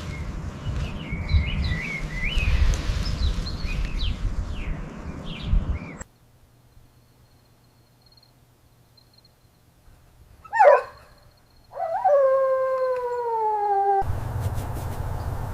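An animal gives a short sharp yelp, then a long howl that slides slowly down in pitch. Before it there is outdoor background noise with bird chirps.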